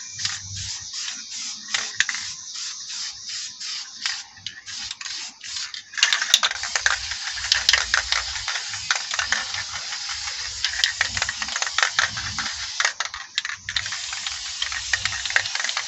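Aerosol spray paint can hissing: a run of quick short bursts at first, then, about six seconds in, one long steady spray.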